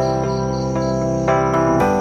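Instrumental background music: sustained chords that change about every half second over a steady high pulse, about four beats a second.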